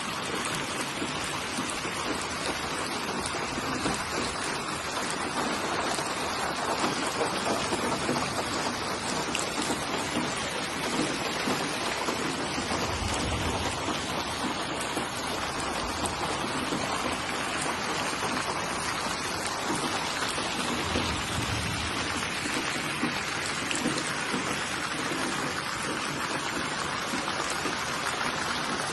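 Steady rain falling, an even hiss of many drops on surfaces. Two brief low rumbles come in, about thirteen and twenty-one seconds in.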